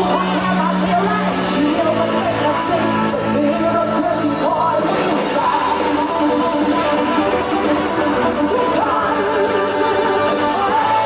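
Live pop band playing, with a woman singing lead into a microphone over bass, drums and keyboard.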